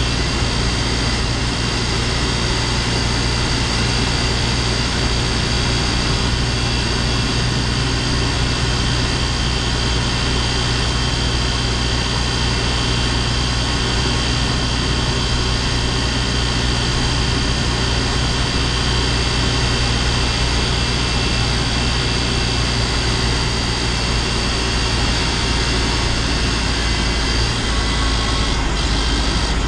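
LDV G10 van's turbocharged petrol engine running on the move, heard from inside the cabin, with a steady high-pitched whistle over the engine and road noise. The owner puts the annoying whistle down to the engine's turbo.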